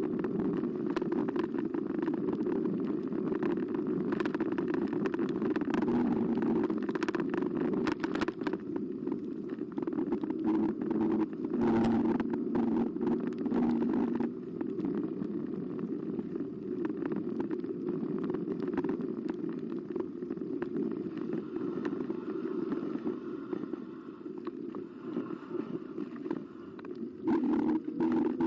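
eBike ride heard from a bike-mounted camera: steady tyre and wind rumble with frequent rattles and knocks over bumps, and a faint hum that comes and goes.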